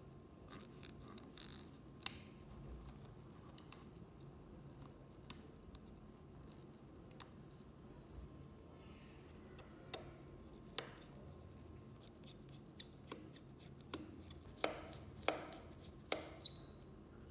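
Small repair tools clicking and tapping against the parts of an iPhone 7 Plus during a battery replacement: scattered single clicks, with a few sharper, ringing ones close together near the end.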